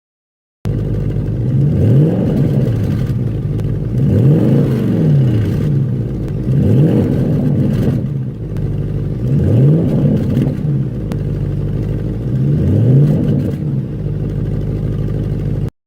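A supercar engine revved five times from idle, each rev rising quickly in pitch and falling back, about every two and a half to three seconds. The sound starts and cuts off abruptly.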